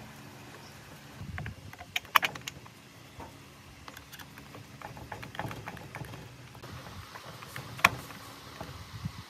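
Irregular clicks and knocks of the restored cut-off saw's parts being handled and fitted together by hand, with a sharp snap about two seconds in and another near the end.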